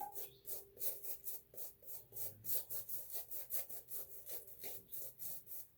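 Shaving brush whisked rapidly through soap to build lather, a wet swishing at about four strokes a second.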